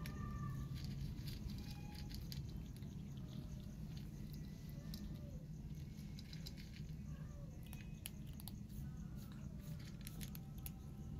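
Cats crunching dry kibble from a plate: a running patter of small sharp crunches, busier near the end, over a steady low background rumble.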